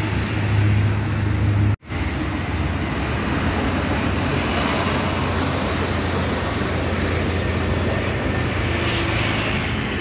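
Road traffic noise: vehicle engines running with a steady low rumble and tyre hiss, no horn sounding. The sound drops out for a moment about two seconds in.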